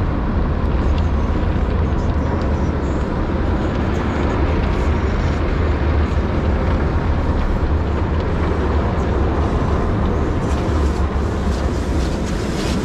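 Automatic car wash running over the car, heard from inside the cabin: a steady, loud rumbling rush of the wash machinery and water on the body.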